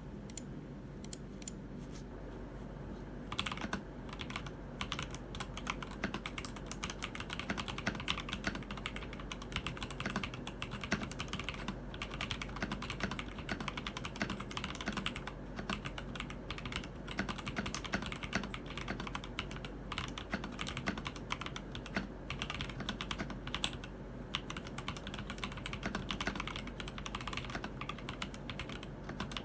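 Typing on a Keydous NJ80 mechanical keyboard fitted with TTC Speed Silver linear switches. A few scattered keystrokes for about the first three seconds, then a fast, continuous run of key clacks.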